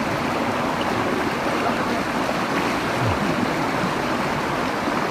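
Stream water flowing, a steady even rush of running water.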